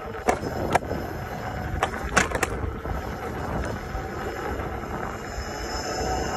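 Kingsong S18 electric unicycle being ridden over pavement: steady hub-motor and tyre noise with a faint high whine, and a few sharp clicks in the first two and a half seconds.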